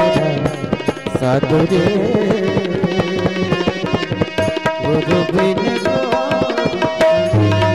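Instrumental interlude of a devotional bhajan: hand drums keep a rhythm under a melodic instrument playing a gliding line, with a low bass note entering near the end.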